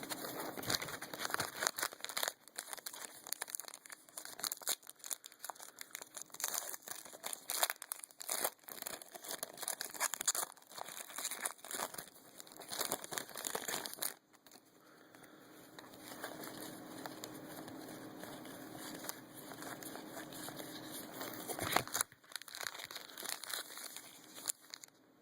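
Trading-card pack wrapper crinkling and being torn open, with cards handled; irregular crackling for most of the first half, softer rustling after, and a sharp click near the end.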